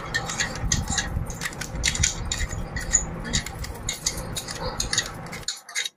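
Raw potato being peeled with a handheld vegetable peeler: a run of quick, irregular scraping strokes of the blade across the skin, which cuts off suddenly near the end.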